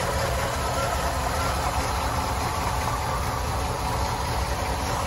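1961 Chevrolet Impala's engine idling smoothly and steadily, heard up close from the open engine bay.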